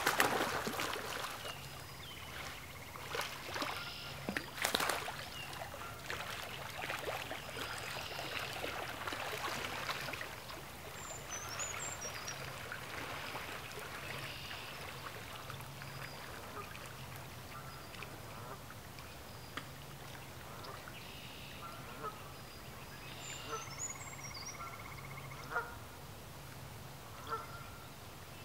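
A dog plunging into shallow swamp water and splashing as it swims away, loudest at the start and fading over about ten seconds. A few faint bird chirps follow.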